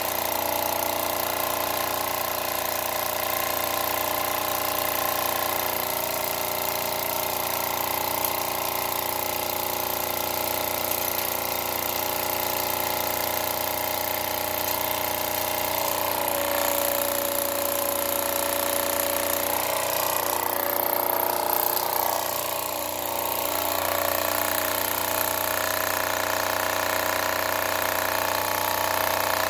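Wilesco toy live-steam engine running steadily at its top speed, the flywheel spinning fast.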